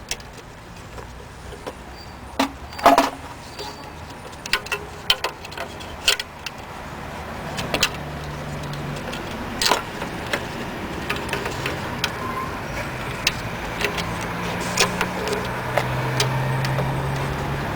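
Irregular clicks and knocks of a car headlight assembly being worked loose and handled by hand, over a steady background hum that grows slowly louder.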